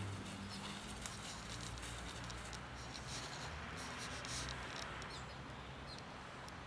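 Dry fallen leaves rustling and crackling faintly under light footsteps, with scattered small ticks.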